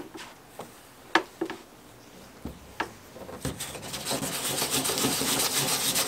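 Folded 60-grit sandpaper rubbed by hand on the inside of a canoe hull, scuffing the surface so a patch will bond. After a few light knocks, rapid back-and-forth scratching strokes start about halfway through and grow louder.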